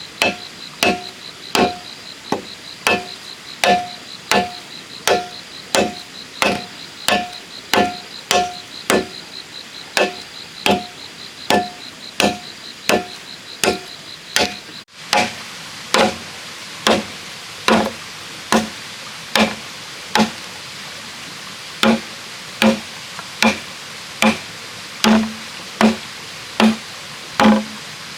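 Steady, rhythmic chopping strokes on bamboo, about one and a half a second, each blow ringing briefly off the hollow stem. Partway through the strokes change to a lower, duller ring. A pulsing insect drone sits under the first half.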